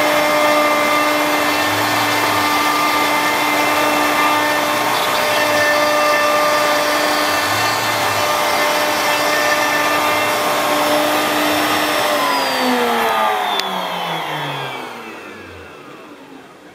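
CNC router spindle running at speed with a steady high whine while its end mill cuts cut-outs in a cap. About twelve seconds in, the spindle shuts off and winds down, its pitch falling and the sound fading away over the next few seconds.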